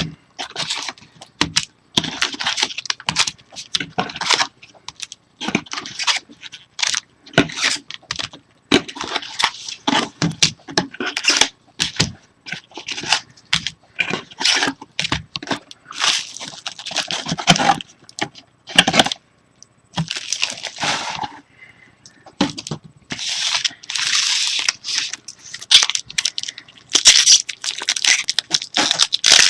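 2013 Bowman Chrome football card packs being torn open by hand. The wrappers rip and crinkle in irregular bursts, with the clicks of cards being handled.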